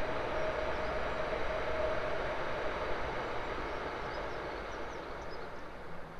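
A passing vehicle on the street, a steady rushing noise with a held hum that fades gradually as it moves away.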